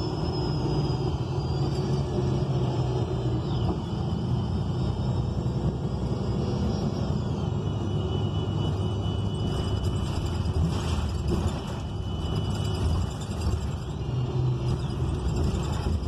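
Inside a 2019 ENC Axess transit bus under way: the steady low rumble of its Cummins Westport L9N natural-gas engine and road noise, with thin high whining tones that slide down in pitch and then hold steady.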